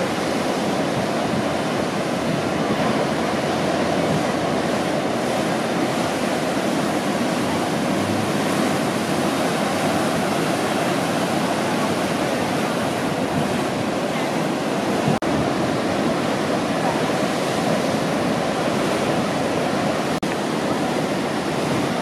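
Steady roar of breaking ocean surf, an even wash of noise with one brief dropout about fifteen seconds in.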